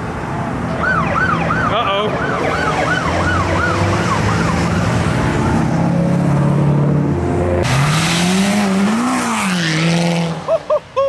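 Police siren yelping in fast rising-and-falling cycles, about three a second, over the low running of V8 engines. About eight seconds in, a Corvette's V8 revs up hard with a loud rush, its pitch rising and then falling, and the siren chirps again near the end.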